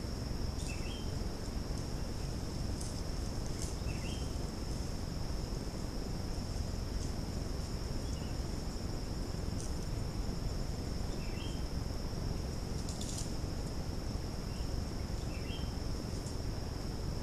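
Forest insects, crickets or cicadas, keep up a steady high-pitched drone. A bird's short upward call comes about every three to four seconds, five times. A few faint ticks and a low hiss sit underneath.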